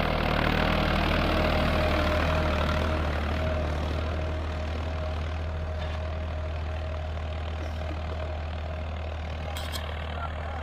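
Farmtrac 60 PowerMaxx tractor's three-cylinder diesel engine running steadily under load while pulling an 18-disc harrow, growing a little fainter over the first few seconds as it moves away.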